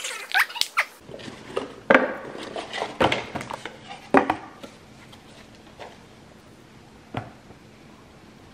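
Handling sounds of sunglasses and small hard cases: a quick run of clicks and light knocks over the first four seconds, then quiet with a single click near the end.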